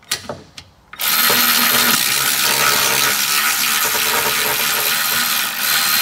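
Milwaukee cordless ratchet spinning out an 8 mm bolt from a fuel pump driver module: a few short clicks, then from about a second in the motor runs steadily.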